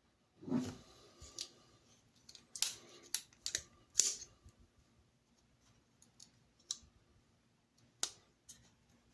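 Splitman multi-tool being handled as its scissors are folded out and worked: a run of sharp, irregular metal clicks and short rustles, the loudest about four seconds in.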